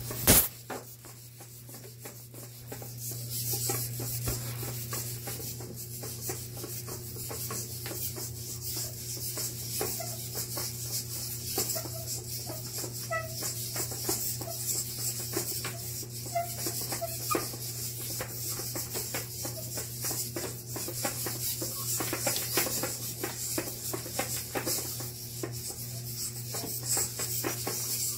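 Hobby servo motors in a homemade quadruped robot's legs buzzing and whirring as it trots, over a steady low hum, with rapid clicks and taps of its feet on a wooden desk. There is a loud knock right at the start.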